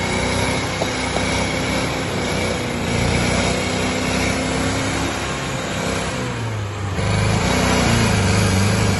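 Mitsubishi Pajero's diesel engine revving hard under load as the 4x4 climbs a steep dirt slope. About seven seconds in the engine note drops lower and gets louder.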